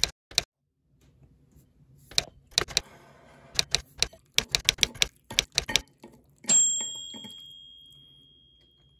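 Typewriter sound effect: a quick, uneven run of a dozen or so key clacks, then the carriage-return bell dings once about six and a half seconds in and rings out slowly.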